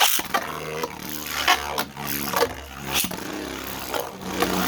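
Beyblade spinning tops launched into a plastic stadium, spinning with a steady whirring hum. Sharp clacks of collisions come roughly every second.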